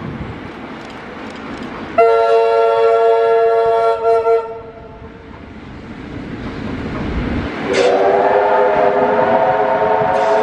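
Steam locomotive whistle blown twice over the rumble of a passing train of wooden carriages. The first blast starts abruptly about two seconds in and lasts about two and a half seconds, with a brief break near its end. A second blast, a chord of several tones, starts about eight seconds in and is still sounding at the end.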